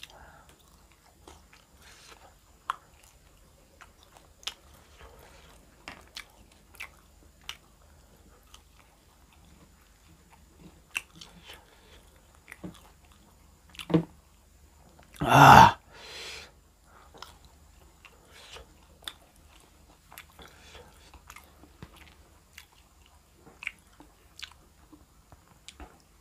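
A person eating close to the microphone: quiet chewing with scattered small mouth clicks and bites, and one much louder crunch about fifteen seconds in.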